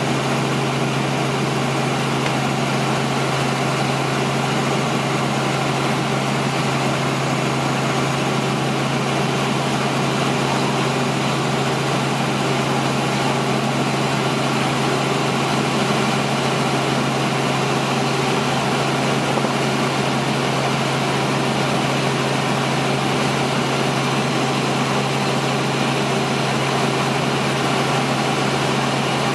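Helicopter engine and rotor noise, a loud, steady drone with a strong low hum that does not change.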